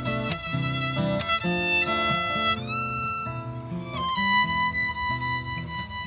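Violin and acoustic guitar playing an instrumental passage with no singing. The violin holds long notes and slides up to a higher note about two and a half seconds in, over strummed guitar chords.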